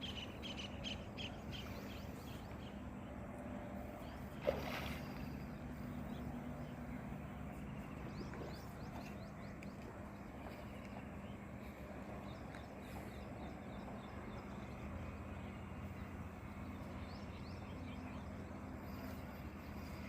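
Outdoor ambience with birds chirping now and then over a steady low hum, and one sharp knock about four and a half seconds in.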